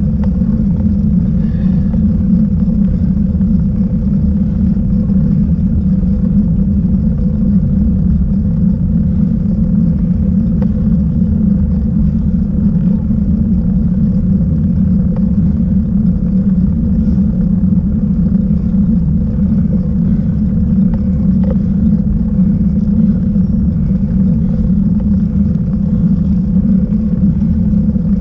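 Steady low rumble of wind and road vibration on a bicycle-mounted camera's microphone while riding, with a faint steady hum above it.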